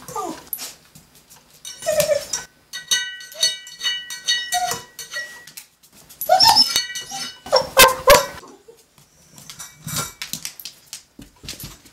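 An upturned stainless-steel pan being nosed and shoved about the floor by a dog: repeated clanks and scrapes of metal on the floor. One stretch rings on with a metallic tone, and the clatter is loudest a little past the middle.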